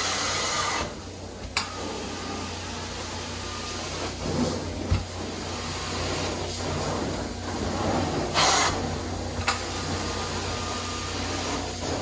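Truck-mounted hot-water extraction wand, a four-jet swivel wand, spraying and sucking water from carpet. It makes a steady hissing suction that drops briefly about a second in and swells louder for about a second later on.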